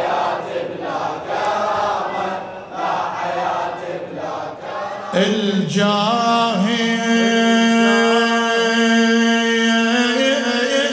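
A mourning congregation chants a latmiya refrain together in Arabic. About five seconds in, a single male reciter takes over with a long, steady, held chanted note that opens the next verse.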